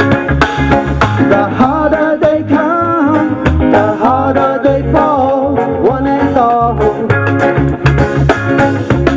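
Live band playing through a PA system: guitars and a drum kit keep a steady beat, with a bending lead melody running over it through the middle.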